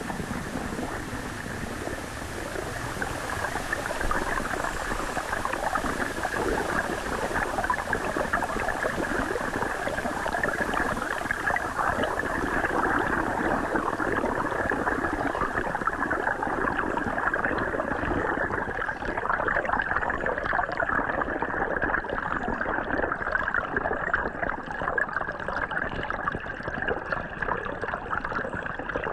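Hydrophone recording under a small creek waterfall: dense underwater bubbling and churning of falling water, cut off sharply above the middle of the range. A faint high hiss above it fades out about two-thirds of the way through.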